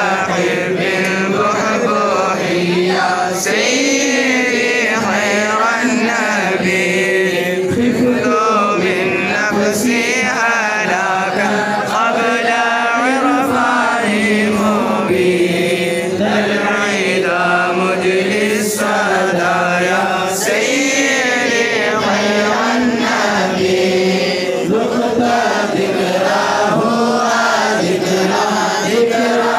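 A crowd of men and boys chanting a devotional baith, an Arabic verse, together in one continuous, unbroken melody.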